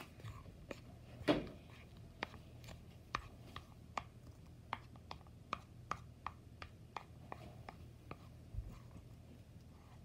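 Shaving foam and white glue being stirred in a bowl: faint, irregular soft sticky clicks and squelches, about two or three a second, with one louder knock about a second in, over a steady low hum.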